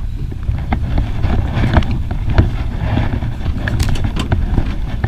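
Steady low rumble of wind and boat noise on the water, with scattered clicks and knocks while fishing line is hauled in by hand over the boat's rail.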